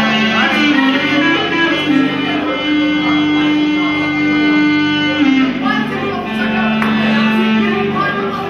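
Clarinet playing long held notes over a violin and keyboard accompaniment, in a live folk-music performance. The melody holds one pitch for several seconds, drops lower about halfway through and climbs near the end.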